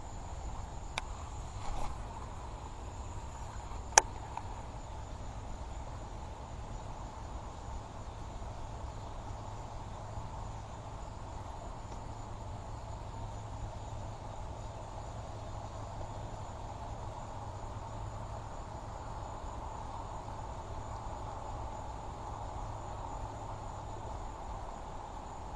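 Insects chirring in a steady high drone, with one sharp click about four seconds in.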